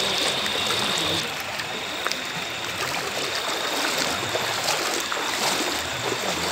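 Floodwater sloshing and rushing as people wade through it, a steady watery noise with small splashes scattered through it.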